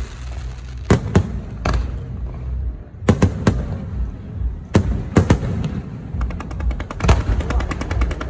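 Aerial fireworks bursting overhead: a string of separate sharp bangs over a low rumble, then, from about two-thirds of the way in, a rapid crackling run of many small pops.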